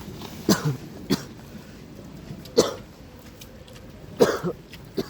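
A person coughing: a run of short, sharp coughs in several bouts, some of them doubled.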